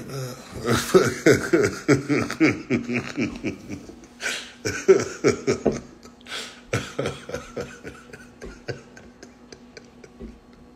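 A man laughing hard in a long run of quick 'ha' bursts, each falling in pitch, with sharp gasping breaths between, trailing off into quieter breathy laughter near the end.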